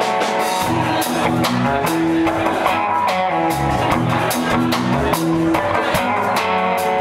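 Rock band playing live: electric guitar over a drum kit, with regular drum hits throughout.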